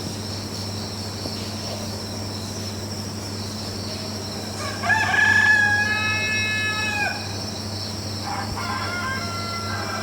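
A bird calling: one long call of about two seconds that drops in pitch at its end, about halfway through, then a shorter call near the end, over a steady low hum.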